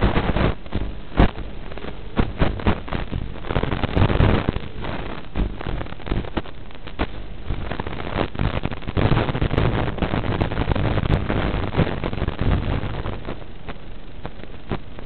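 Rushing noise with frequent crackles and pops, as heard on the audio of an FPV quadcopter's analog video feed in flight.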